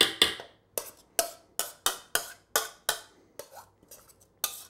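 Spoon scraping and tapping against a white mixing bowl as the vegetable mixture is scraped out: about a dozen quick, sharp scrapes and knocks, two or three a second, loudest at the start.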